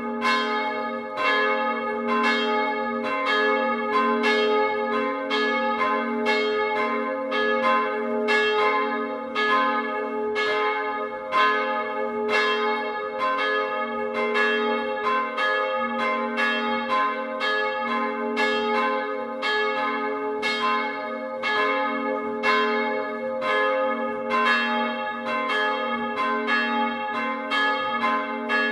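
Full peal of two swinging church bells, recorded close up in the wooden bell frame. Their clappers strike in an uneven, overlapping rhythm, about one stroke every half second between them, over a steady ringing hum.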